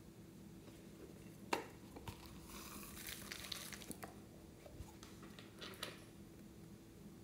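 Faint handling of a hollow plastic toy container as sprinkles, sticks and foam cubes are shaken out of it onto slime in a glass tray. There is a sharp click about one and a half seconds in, then a soft rattle and patter of small pieces landing, and a few light clicks.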